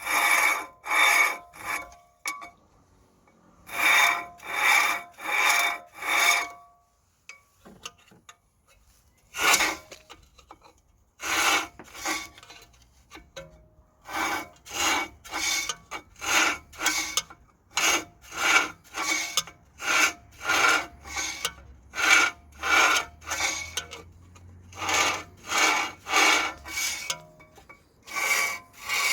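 A front brake disc being scrubbed by hand to remove debris, in rhythmic back-and-forth scraping strokes. The strokes come in runs of three to a dozen, roughly two a second, with short pauses between runs.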